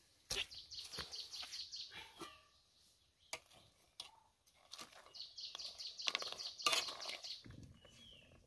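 A small bird chirping in two quick runs of repeated high notes. Sharp metal clinks come from an aluminium pot lid and a spoon against the cooking pot.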